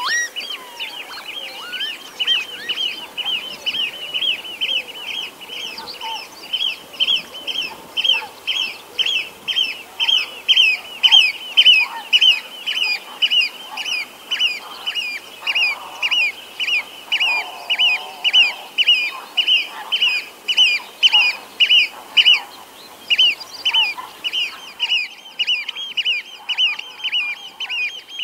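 Eurasian oystercatcher piping: a long, rapid series of loud, shrill notes at one steady pitch, about three a second, with a brief pause late on. Fainter bird calls sound beneath it.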